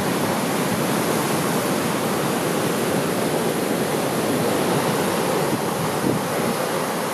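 Heavy storm-swell surf breaking on a sand beach and washing up the shore: a continuous, steady rush of breaking waves. The swell is a ressaca raised by a passing cold front.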